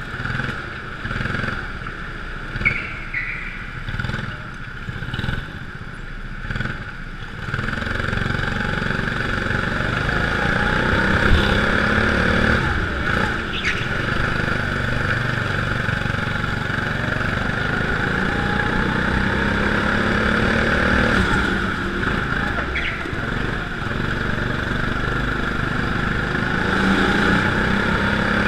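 Go-kart engine heard from on board the kart, running under load through a lap, with its pitch rising as it accelerates. It is quieter and uneven for the first seven seconds or so, then runs louder and steadier, with a couple of sharp knocks along the way.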